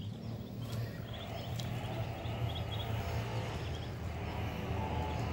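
Ducklings peeping in short, high chirps, scattered mostly through the first couple of seconds, over a steady low hum.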